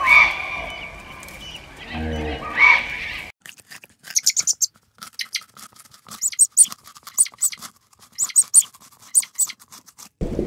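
Birds chirping with a brief low call in the first few seconds. Then, from about three seconds in, rabbits munching fresh leafy greens: rapid, crisp crunching bites in quick runs.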